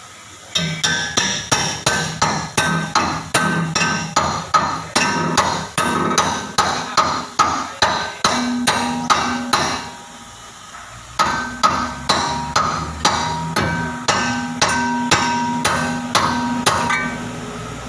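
Hammer striking metal in a fast, steady run of blows, about three a second, each ringing briefly, with a short pause about ten seconds in before the blows resume; typical of driving a new bush into a leaf spring eye.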